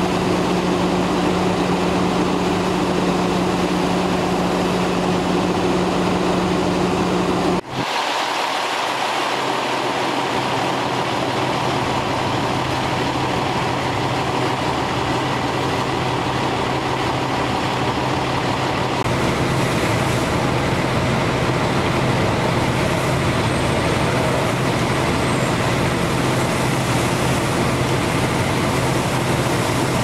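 Fire truck's engine and pump running steadily, a constant hum under a broad hiss. The sound drops out briefly nearly eight seconds in, and after that the hum sits a little lower.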